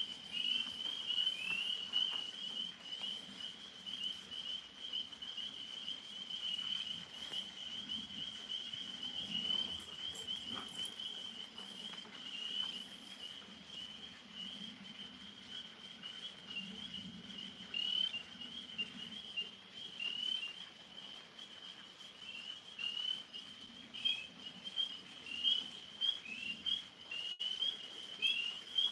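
Tree frogs chorusing: a dense, unbroken run of short, high peeping calls from many frogs at once.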